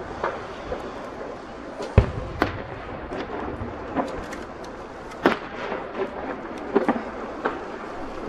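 Aerial fireworks bursting: about half a dozen sharp bangs at irregular intervals, the loudest and deepest about two seconds in, over a steady background hiss.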